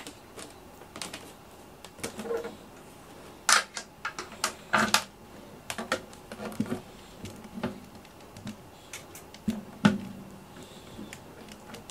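Irregular clicks, clatters and light knocks of cables, plugs and small equipment being handled while tangled wiring is sorted out, with a few sharper knocks about three and a half, five and ten seconds in.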